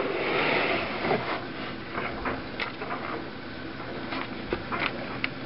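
Rustling handling noise with scattered light clicks and knocks, heaviest in the first second.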